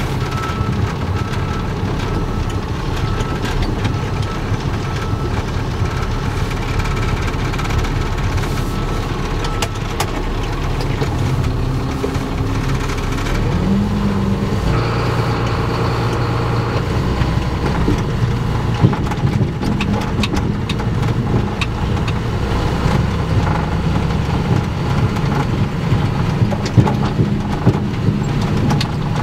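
Freightliner M2 106 truck's diesel engine running under way, heard from inside the cab along with road and cab noise. The engine note shifts about halfway through, and occasional short knocks and rattles come in the later part.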